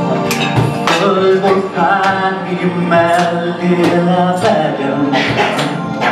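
Live pop song: a solo voice singing over held keyboard notes, with regular drum hits.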